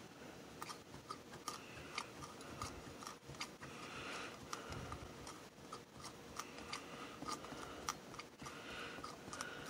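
Antique Singer 24-7 chain stitch sewing machine worked slowly by hand, its needle bar and feed mechanism making faint, irregular clicks, about one or two a second, as it stitches through cloth, with a soft rustle now and then.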